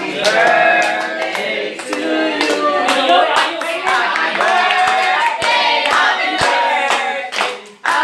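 A group of adults and children singing together and clapping along, with a short break in the singing near the end.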